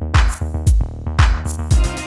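Electronic background music with a drum-machine beat: deep kick drums and sharp high hits over a bass line.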